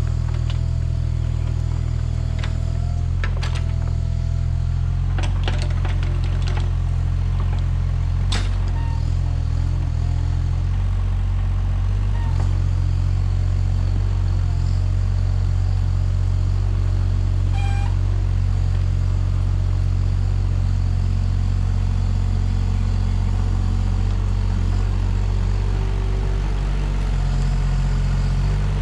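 Mini excavator engine running steadily, with several sharp clicks and knocks during the first ten seconds or so. Its note shifts a little about eleven seconds in.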